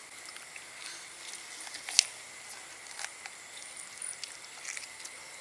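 Hands tearing a leg off a whole glazed roast chicken, with wet, sticky squishing and small crackles of skin and meat. A sharp click about two seconds in is the loudest sound. Behind it runs a steady high-pitched background tone.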